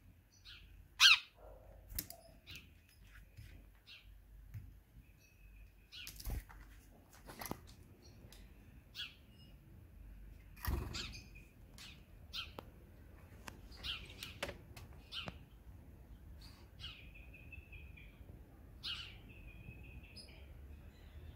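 House sparrows chirping: a run of short, high chirps, the loudest about a second in, with a few longer held notes later on and some soft knocks.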